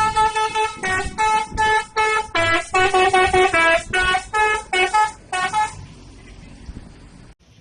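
Bus telolet horn, a multi-tone air horn, playing a quick tune of many short notes at changing pitches; it stops about six seconds in, leaving a low background rumble.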